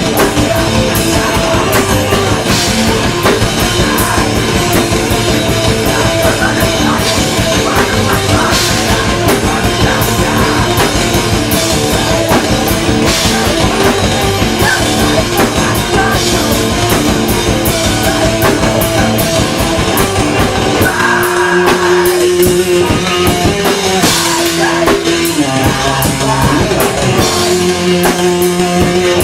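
Live hardcore band playing loudly, with pounding drums and distorted guitars. About 21 seconds in, the heavy low end drops away to a thinner passage of distinct picked notes.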